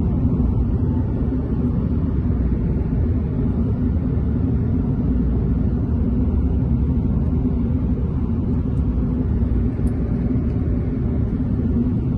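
A car driving along a highway, its road and wind noise making a steady low rumble.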